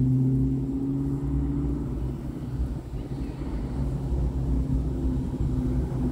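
Supercharged V8 of a 2003 Mustang SVT Cobra with long-tube headers, an X-pipe and a Bassani cat-back exhaust, running steadily with a low, even exhaust note as the car approaches.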